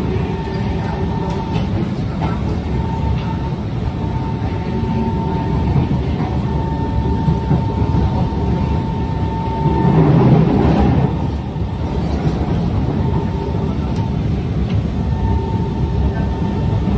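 Kawasaki C151 metro train heard from on board while running between stations: steady rumble of wheels on rail, with a thin whine at one pitch that comes and goes. The noise swells louder for about a second around ten seconds in.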